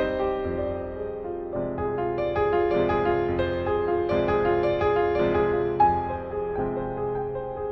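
Instrumental piano music, melody notes ringing on over one another above held chords.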